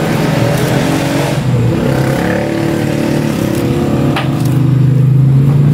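An engine running steadily nearby, a low pitched hum that grows louder about five seconds in.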